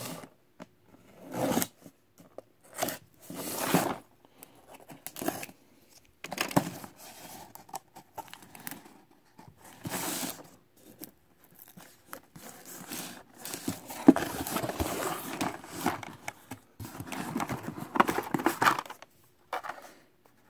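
Cardboard shipping case being opened by hand: packing tape tearing and box flaps scraping and rustling, in irregular strokes of rasping and crinkling.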